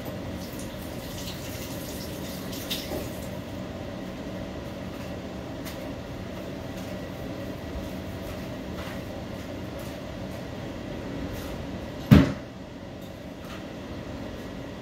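Steady low background hum with a few faint clicks, and one sharp knock about twelve seconds in.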